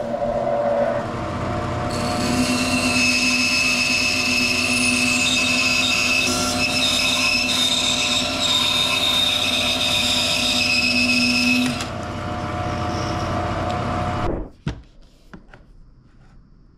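A band saw running, its blade cutting through a hardwood block of jacaranda from about 2 s to nearly 12 s with a high whine on top of the motor hum. It then runs on without cutting, and the sound stops abruptly about 14 s in.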